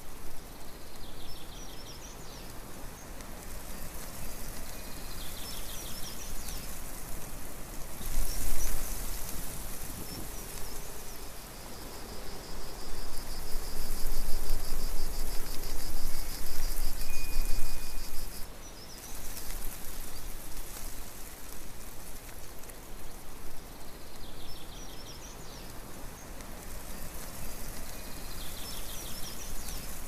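Wind rustling through a tree's leaves as a steady hiss. There is one stronger gust about eight seconds in and a longer one through the middle. Faint high chirps come through at times.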